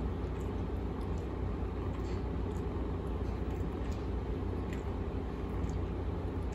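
Adult cat licking a kitten's fur: faint tongue clicks, over a steady low rumble.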